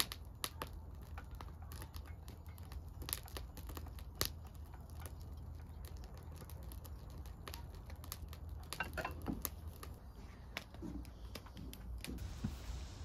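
Things being handled at close range: scattered sharp clicks and light knocks at irregular intervals, over a low steady rumble.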